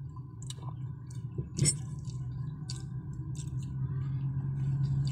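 Close-up eating sounds: chewing and lip smacks as rice and grilled dried fish are eaten by hand, with one sharp click about a second and a half in. Under it runs a steady low hum that grows louder near the end.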